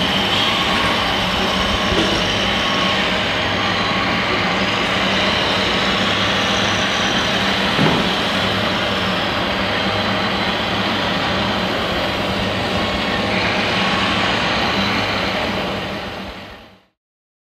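Scale RC construction models at work, a hydraulic excavator and truck, giving a steady mechanical drone and motor whine with a couple of brief knocks, fading out near the end.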